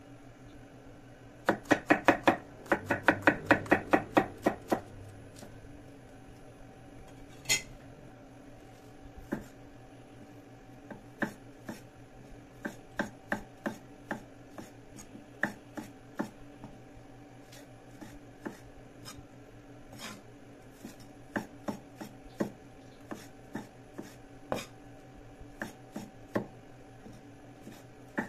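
Steel cleaver chopping vegetables on a thick wooden chopping block. A quick run of chops, about five a second, starts about a second and a half in and lasts about three seconds, then gives way to slower, scattered knocks of the blade on the wood.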